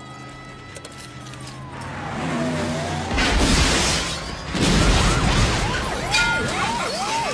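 Film sound effects of a vehicle racing in: two loud surges of engine and tyre noise about three and four and a half seconds in, then a police siren yelping in quick rising and falling cycles.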